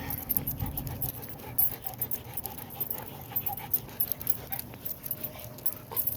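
Large dogs panting as they walk, with many short, irregular clicks and taps throughout.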